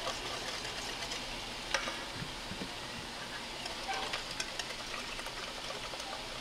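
A whisk scraping and stirring blended tomato sauce through a stainless steel mesh strainer, with a few sharp clicks of metal on the mesh. Under it runs a steady sizzle of pork browning in a pan.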